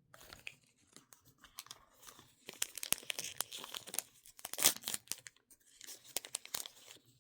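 Thin plastic wrapper crinkling and tearing as a tiny Mini Brands miniature is unwrapped, a stretch of sharp crackles that is loudest a little past halfway.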